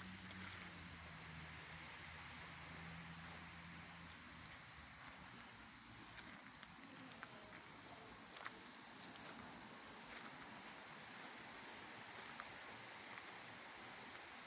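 Insects trilling steadily in a high, unbroken drone, with a low hum underneath that fades out about four seconds in.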